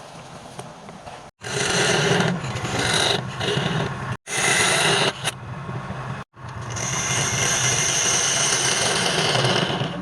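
Wood lathe running with a turning tool cutting and scraping the spinning wood: a steady motor hum under a hissing scrape. The sound cuts off abruptly three times and resumes.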